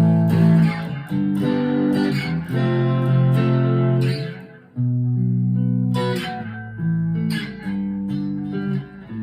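Chapman ML3 Pro Thinline electric guitar played clean through a small amp on its neck pickup: picked chords and single notes, with a short break about halfway, moving smoothly into a D chord.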